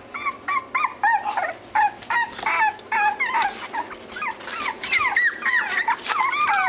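Six-week-old Cavalier King Charles Spaniel puppies whining and yipping: repeated short, high-pitched squeaky calls several times a second, coming faster and overlapping from about five seconds in.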